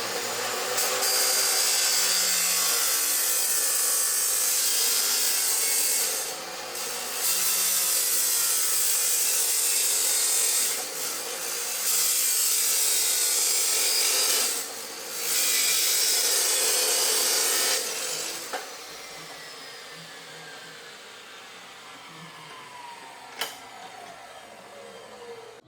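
Electric power tool working steel Unistrut channel, running under load in several stretches of a few seconds. About three quarters of the way in it is switched off and its whine falls away as the motor coasts down, with a single sharp click near the end.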